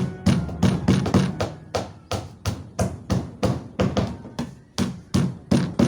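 Hammer driving nails into wood: a steady run of sharp blows, about three a second, that stops near the end.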